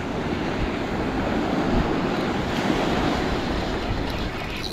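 Ocean surf breaking and washing up a sandy beach, swelling through the middle, with some wind on the microphone.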